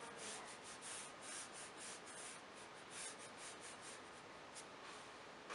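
Faint swishing of a paintbrush stroking watercolour paper in a quick run of short strokes that thin out toward the end.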